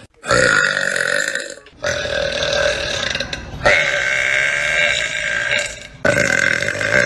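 A person burping: a run of long, drawn-out belches, about four in a row, each lasting one to two seconds, with short breaks between them.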